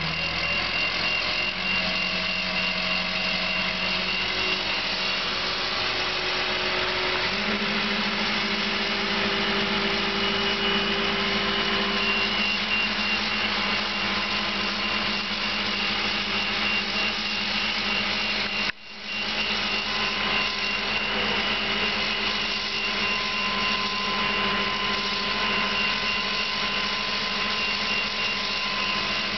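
Diesel engine of a truck-mounted crane running steadily under load while holding a suspended log cabin, its engine speed stepping up twice, about one and a half and seven seconds in. The sound cuts out for an instant about two-thirds of the way through.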